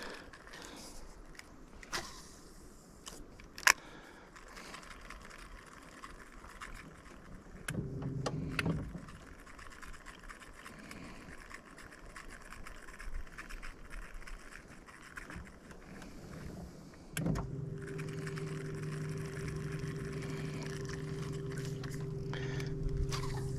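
A few sharp clicks, then a boat motor humming at a steady pitch, briefly about eight seconds in, then starting again about seventeen seconds in and running steadily.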